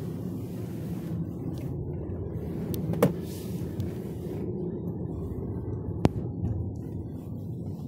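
Steady low rumble of tyre and road noise inside the cabin of a Tesla Model 3 on the move, with no engine sound. Two sharp clicks cut through it, about three seconds apart.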